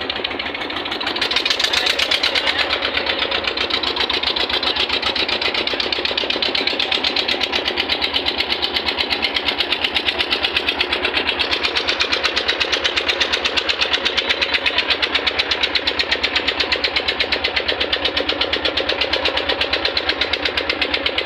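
Combine harvester running steadily, its engine and machinery making a loud, fast, even pulsing.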